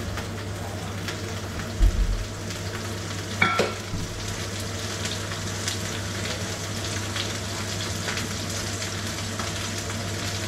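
Thin snapper fillets sizzling as they fry in hot oil on a gas cooktop, a steady crackling hiss, with a chili-honey glaze simmering beside them. A dull thump comes about two seconds in and a short clink about a second and a half later.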